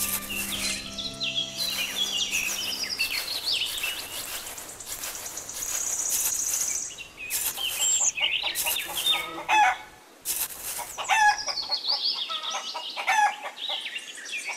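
Birds chirping in quick, rapid calls, mixed with chickens clucking, a farmyard chorus. Short scrapes of a small trowel digging into sand come now and then.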